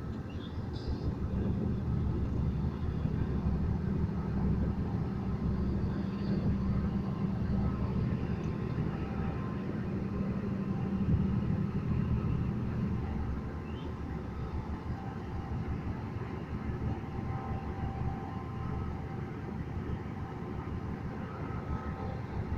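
Diesel locomotive of a Ferromex repair train running with a steady low drone, louder for the first half and then easing off.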